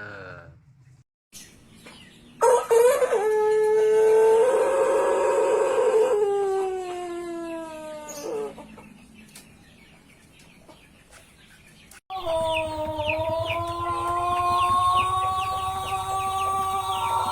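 Pelung rooster crowing: one long drawn-out crow starting about two seconds in, held steady and then falling in pitch as it ends. A second long crow starts after a cut just past the middle and is still going at the end.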